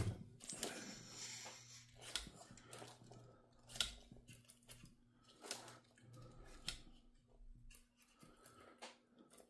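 Traxxas TRX-4M scale crawlers being pushed and repositioned by hand on a mat: faint scuffs of rubber tyres and about half a dozen scattered light knocks and clicks.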